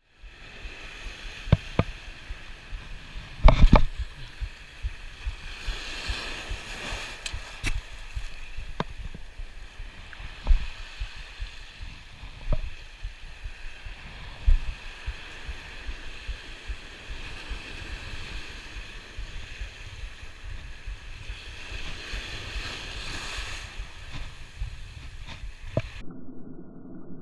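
Surf washing and churning against a rocky shore, with a handful of sharp knocks from the spinning rod and reel being handled during casting and retrieving; the loudest knock comes about three and a half seconds in.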